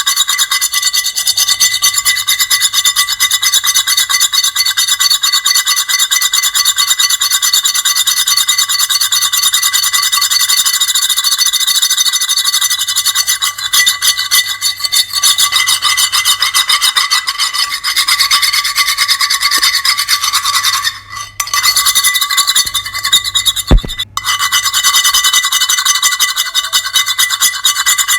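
Continuous harsh, shrill grating scrape of the fingernails-on-chalkboard or metal-scraping kind, made of very rapid rasping strokes, breaking off briefly twice near the end.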